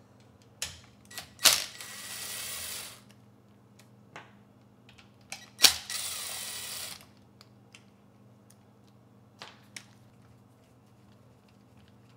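Cordless drill-driver backing screws out of a chainsaw's air-filter and carburetor mount: two short runs of about a second each, about a second and a half in and again near six seconds, each starting with a sharp click. Scattered clicks and knocks of tools on the plastic housing.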